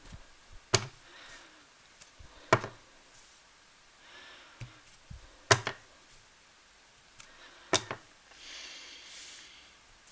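A clear acrylic stamp block is set down hard on paper on a craft mat four times, a sharp knock each time, every two to three seconds. A brief rustle of handling comes near the end.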